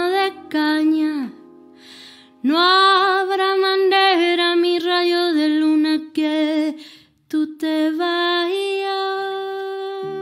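A woman singing long, held notes with vibrato, with a breath about two seconds in, over a bowed double bass and piano.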